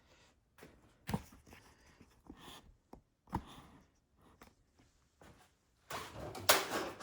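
Handling noises at a snowblower's oil fill cap and pipe: a few soft knocks and clicks, then louder rubbing and rattling near the end.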